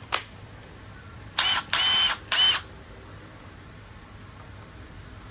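Makita cordless impact wrench run three times in quick short bursts at no load, its motor whining up to speed each time, the middle run the longest. A single click comes just before.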